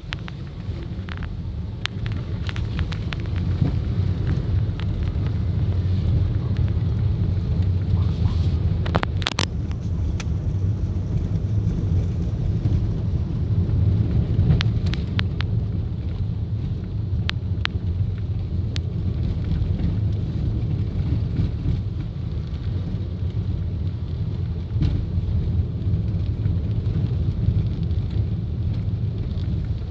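Car driving along a concrete street, heard from inside the cabin: a steady low rumble of road and engine noise, with scattered light clicks and knocks.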